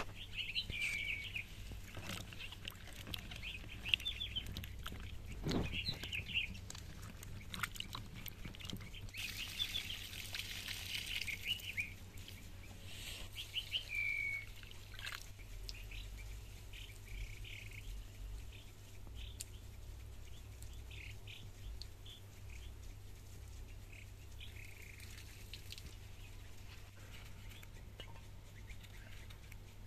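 Small birds chirping repeatedly through the first half, with scattered light taps from handling. Near the middle comes a few seconds of water pouring from a clay jug onto rice.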